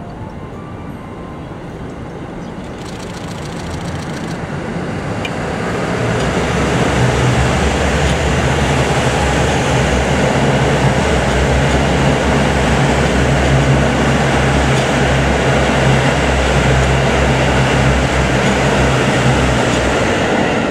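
JR Central KiHa 85 series eight-car diesel multiple unit passing: the rumble of its Cummins diesel engines under the rush of wheels on rails. It grows louder over the first six seconds as the train draws near, then stays loud and steady as the long train goes by.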